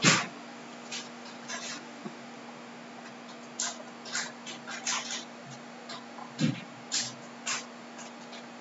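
A steady faint hum with about a dozen short, soft noises scattered through it, the loudest right at the start and another about six and a half seconds in.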